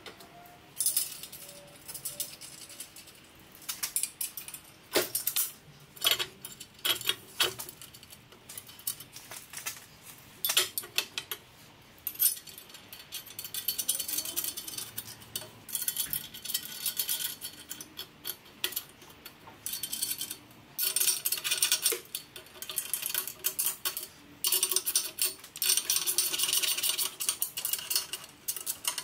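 A hand ratchet clicking in quick runs, mixed with metallic clinks of nuts, bolts and washers, as the flange bolts of a stainless steel exhaust cross pipe are run up and tightened.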